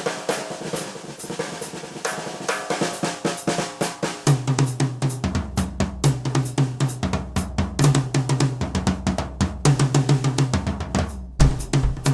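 Instrumental music: a fast, busy drum beat over held pitched tones, with a deep bass line coming in about four seconds in and a brief break near the end before the bass returns heavier.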